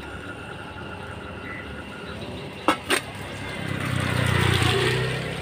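A motor vehicle passing on the street, its engine swelling and fading over about two seconds in the second half. Shortly before it come two sharp knocks in quick succession, from metal cups or a kettle being handled.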